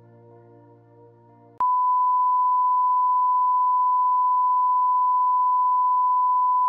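Quiet ambient music ends, and about a second and a half in a loud, steady, single-pitch test tone cuts in abruptly: the bars-and-tone reference tone that goes with a colour-bar test pattern.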